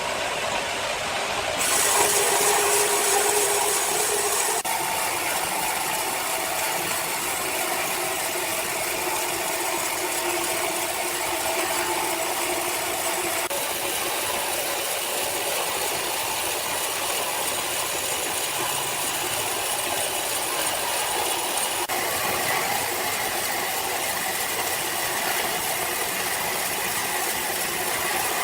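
Sawmill saw running and cutting through timber: a steady, loud mechanical noise with a constant hum. It grows louder about two seconds in and changes character abruptly a few times.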